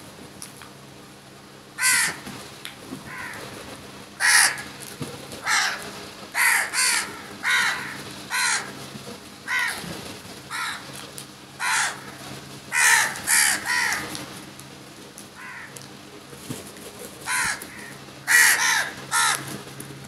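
A flock of house crows cawing: short, harsh caws, some single and some in quick runs of two or three, beginning about two seconds in and repeating every second or so.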